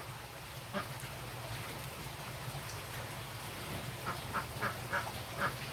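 A duck quacking in a quick run of short quacks, about three a second, starting about four seconds in, over a low steady background hum.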